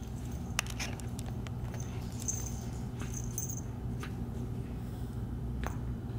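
Imperial Shih Tzu puppy wriggling and rolling on a shaggy rug: soft scuffling with a few small clicks, over a steady low hum.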